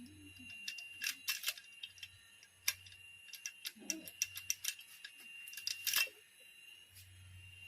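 Scattered light clicks and taps of hand tools and small metal parts being handled during motorcycle assembly, irregular and faint.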